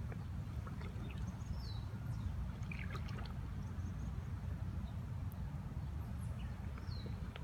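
Outdoor ambience: a steady low rumble, with a bird giving a short falling chirp twice, about two seconds in and near the end, and a few faint clicks in between.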